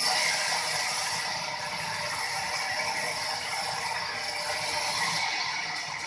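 Sawmill machinery running steadily with a dense mechanical rattle and clatter; it comes in suddenly at the start.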